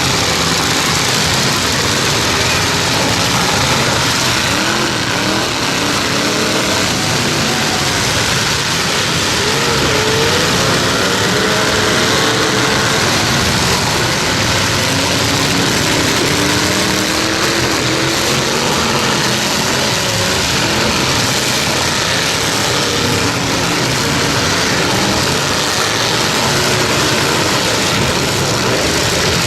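Several demolition derby trucks' engines running together and revving up and down, a loud continuous din.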